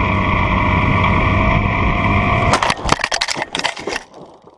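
Onboard sound of an RC plane's motor running at steady power with a slowly rising whine, then a crash about two and a half seconds in: a quick rattle of hits and crunches as the plane strikes the ground and tumbles, with the motor cutting out.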